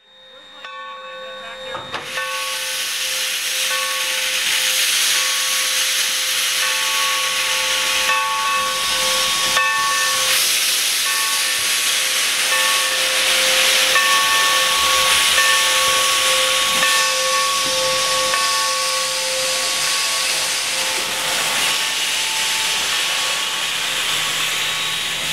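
Mikado-type steam locomotive hissing off steam: a steady, dense hiss with faint ringing tones running through it that come and go, fading in over the first two seconds.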